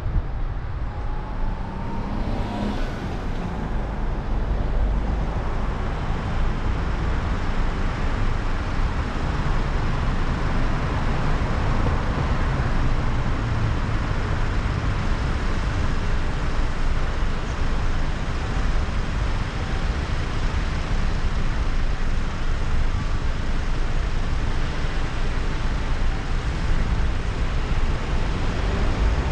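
City road traffic picked up by a camera mounted on the outside of a car: a steady rumble of engines and tyres from the car and the vehicles around it.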